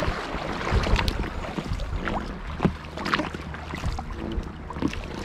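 Kayak paddling on choppy lake water: irregular splashes and drips from the paddle blades and water lapping at the hull, with wind rumbling on the microphone.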